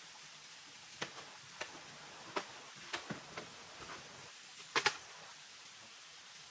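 A run of irregular light knocks and clicks, about ten over four seconds, the loudest two coming in quick succession near the five-second mark, over a steady hiss.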